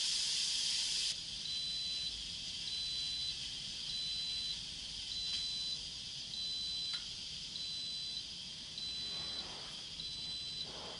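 Instant Pot Ultra electric pressure cooker beeping at the end of its cooking cycle: a short high beep about every 1.2 seconds, eight in all, signalling that cooking is done and the pot has switched to keep warm. A steady hiss cuts off about a second in.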